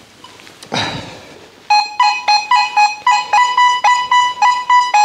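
Nokta Makro Legend metal detector giving its target tone over a crushed drink can: repeated sharp beeps at about four a second, switching between two close pitches as the coil sweeps back and forth, starting just under two seconds in. The readout of about 40 is a non-iron signal that the detector marks as worth digging.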